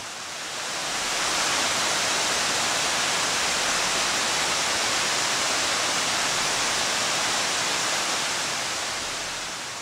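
Man-made pumped waterfall cascading over terraced rocks: a steady rush of falling water that swells up over the first second or so and eases down near the end.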